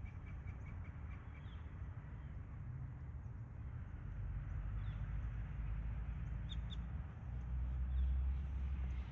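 Outdoor ambience: a steady low rumble that swells near the end, with faint high bird chirps now and then and a quick run of light ticks at the start.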